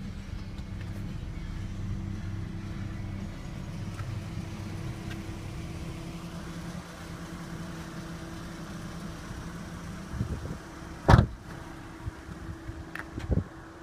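2014 Ford Mustang's 3.7-litre V6 idling with a steady low hum. About eleven seconds in, a car door slams shut with one loud bang, followed by a few lighter knocks near the end.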